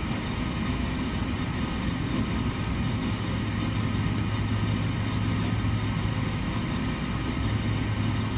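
A machine running steadily with an even low hum; its low drone grows a little stronger about halfway through and again near the end.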